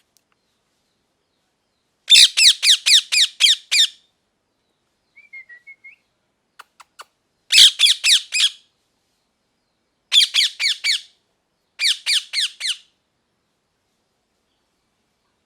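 Ringneck parakeet calling in four bursts of fast, repeated squawks, each call falling slightly in pitch, the first burst the longest at about two seconds. Between the first and second bursts come a few soft chirps and faint clicks.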